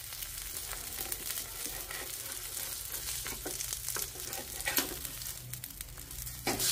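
Oil sizzling steadily under a noodle-and-egg patty frying in a flat nonstick pan. A spatula scrapes and taps against the pan a few times as it is slid under the patty to turn it, with the sharpest knocks near the end.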